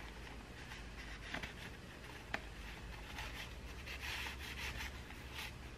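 Faint rustling and sliding of paper and card as hands handle the pages and tuck a card into a pocket of a handmade paper journal, with two light ticks in the first half.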